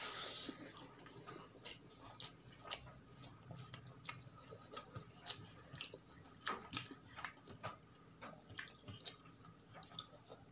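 Close-miked chewing of a big mouthful of rice and cooked vegetables: soft, irregular wet clicks and smacks of the mouth, with a louder burst as the bite is taken at the start.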